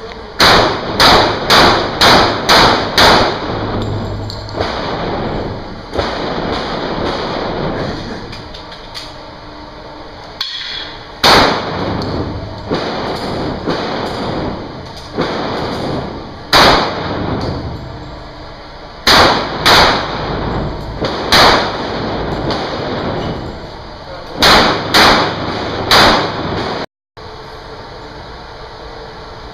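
Pistol shots fired in an indoor range, echoing off the concrete walls: a fast string of about six shots, then single shots, pairs and short strings of three spread over the following twenty seconds.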